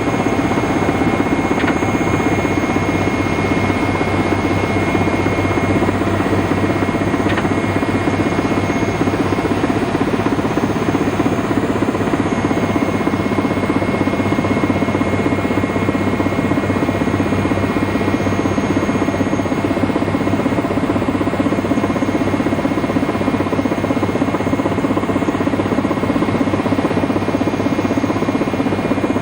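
Helicopter engine and rotor noise heard steadily from inside the cabin in flight, a loud unbroken drone with steady high whines over it.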